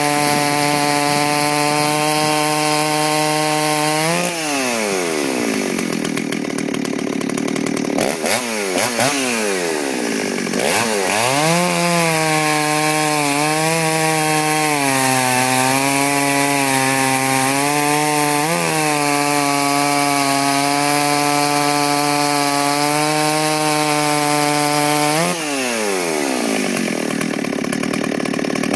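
Stihl 034 two-stroke chainsaw cutting through a log at full throttle. It drops back toward idle about four seconds in as a cut finishes, revs up again a few seconds later, holds a steady pitch through a long second cut, and drops off again near the end.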